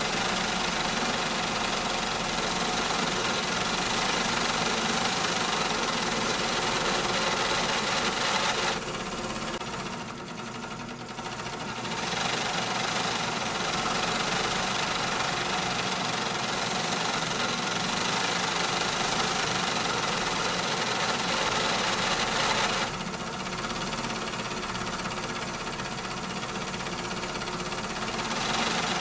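Factory machinery running: a dense, steady mechanical din with a faint hum running through it. The din thins and drops a little about nine seconds in, picks up again, then eases somewhat about two-thirds of the way through.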